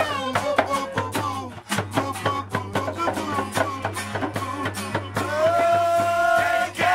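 Live acoustic band music: a strummed acoustic guitar with a steady rhythmic beat and a man singing, with one long held note near the end.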